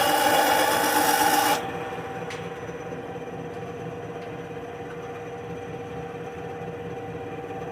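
Harbor Freight benchtop bandsaw's blade cutting through wood, which stops about a second and a half in as the cut finishes. The saw then runs on without load, a steady hum.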